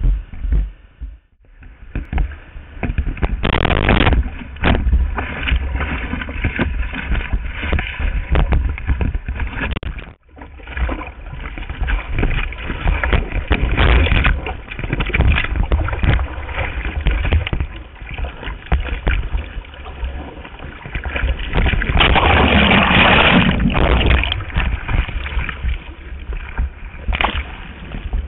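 Water rushing and splashing around a surfboard-mounted action camera as a surfer paddles through whitewater. A louder burst of splashing lasts a couple of seconds about two thirds of the way in, and the sound drops out briefly about a second in and again about ten seconds in.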